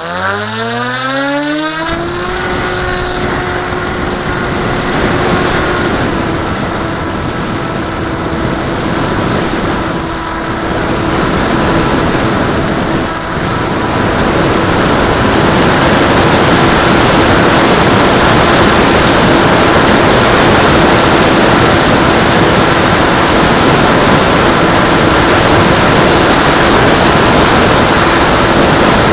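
Bixler 2 model plane's brushless electric motor (Turnigy D2826-10 1400kv) and 8x5 propeller whining up steeply in pitch over the first two seconds for the hand launch, then holding a steady pitch in flight. The onboard camera's microphone also picks up heavy wind rush, which grows louder about halfway through.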